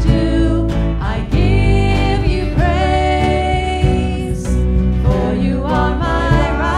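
A Christian worship song: a singer over a band with bass and drums.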